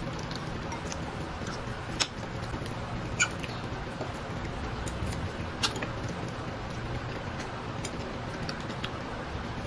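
Eating sounds: chewing and small wet mouth clicks as fish is picked apart by hand and eaten. A few sharper clicks come about 2, 3 and 5½ seconds in, over steady background noise.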